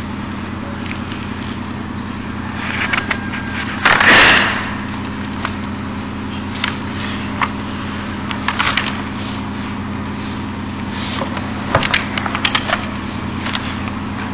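Paper rustling and light clicks from the pages of a book being leafed through, with one louder rustle about four seconds in and smaller clusters near eight and twelve seconds, over a steady low hum.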